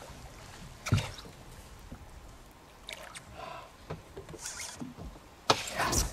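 Water splashing and swirling as a hooked spottail bass fights at the surface beside the boat, with two sharp knocks: one about a second in and a louder one near the end.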